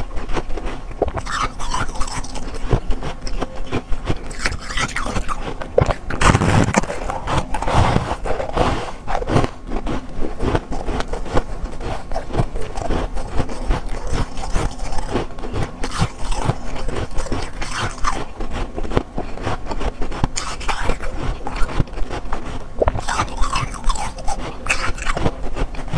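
Soft freezer frost crunching and squeaking as it is squeezed in the fingers and eaten: a dense run of fine crackles, with a louder burst about six seconds in.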